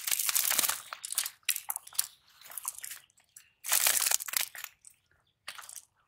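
Rustling and crunching as a cast net full of fish is shaken and pulled open on grass. It comes in irregular bursts, loudest over the first second and again about four seconds in.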